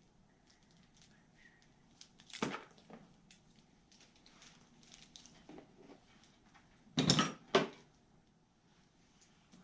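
Handling noises from working on a small LED light and its wiring: faint scattered clicks and rustles, a short crunch about two and a half seconds in, and a louder pair of crunches about seven seconds in.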